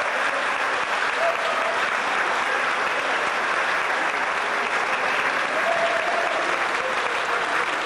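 Audience and students on stage clapping in steady, sustained applause.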